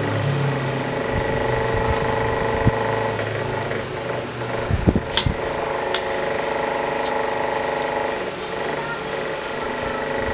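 Steady mechanical hum, several tones held level, with a deeper hum underneath that stops about four seconds in. A few light clicks and one sharper clink come around the middle.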